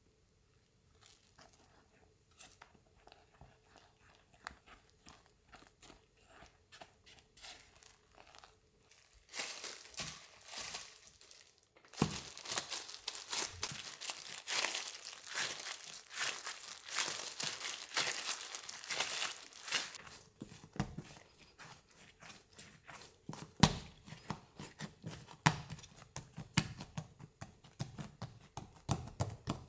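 Hands in disposable plastic gloves kneading soft bread dough on a silicone mat: the gloves crinkle and the dough is pressed and folded in a run of strokes. The strokes start soft and get much louder partway through, with one heavier thump as the dough is pushed down late on.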